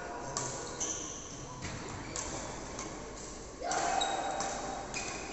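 Badminton rally in a large sports hall: rackets striking the shuttlecock in sharp strokes, with short high squeaks of sneakers on the court floor, in an echoing room.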